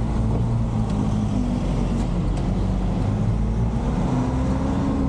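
JAC light cargo truck's engine running steadily at low speed, heard from inside the cab, with the engine note rising a little and falling back about four seconds in.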